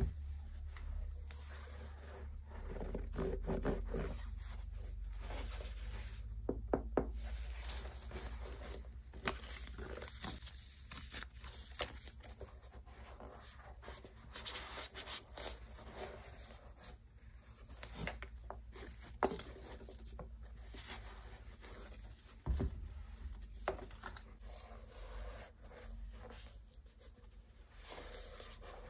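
White cotton-gloved hands handling a pair of Adidas AE 1 basketball shoes: soft rubbing and scraping on the knit upper and rubbery sole, with scattered light taps and clicks, over a low steady hum.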